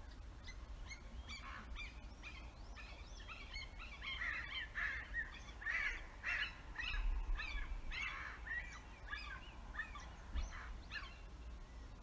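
American crows and a red-shouldered hawk calling: a rapid, overlapping series of short harsh calls. The calls grow busiest and loudest in the middle and thin out near the end.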